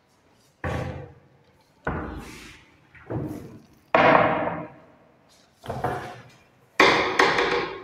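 Laminated wardrobe and loft cupboard shutters being opened and shut by hand: about seven sharp knocks and bangs of the wooden doors against the frame, each echoing briefly in the bare room.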